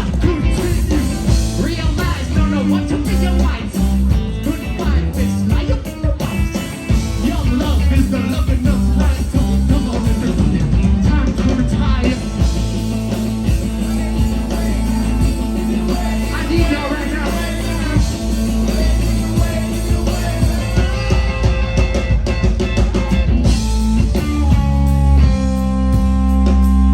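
Live rock band playing: electric guitar, bass guitar and drum kit, with singing. Near the end the band moves into long held chords.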